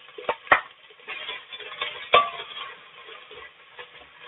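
Wooden spatula stirring sliced onions in hot oil in a metal pot: a few sharp knocks of the spatula against the pot over faint sizzling and scraping.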